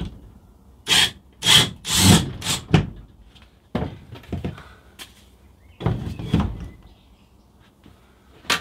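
A run of handling knocks, thunks and scrapes, as of a cordless power tool being moved against a wall-mounted plastic tool holder. A cluster of knocks runs from about a second in to three seconds, with more around four and six seconds and a sharp click near the end.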